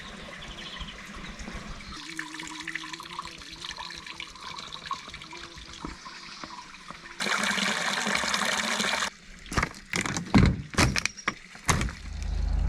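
Water running and trickling, louder for about two seconds in the middle, followed by several sharp, sudden knocks.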